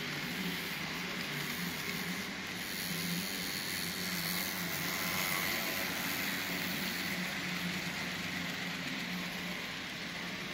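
Electric model trains running on a tabletop layout: a steady whirring hum of small motors and rolling wheels on the track.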